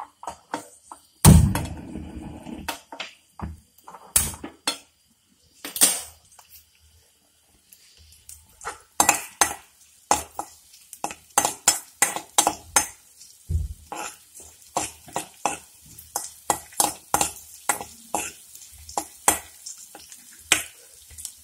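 Steel ladle scraping and clinking against a metal wok as shallots sauté in butter, with a faint sizzle of frying underneath. Near the start come a few heavier knocks of pans being handled; from about eight seconds in the ladle strokes run quickly, two or three a second.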